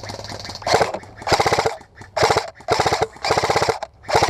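Airsoft gun firing on full auto in short bursts, about five of them, each a rapid string of clicks lasting around half a second.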